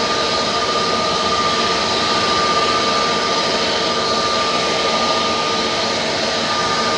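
Airbus A320neo's CFM LEAP-1A turbofan engines running steadily: a high fan whine over a broad jet rush.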